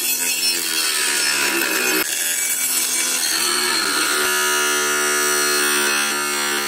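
Small 775 DC motor spinning a homemade table saw's blade as it cuts through PVC pipe: a rasping cut over the motor's whine. The pitch sags and recovers under the load, then holds steady from about four seconds in.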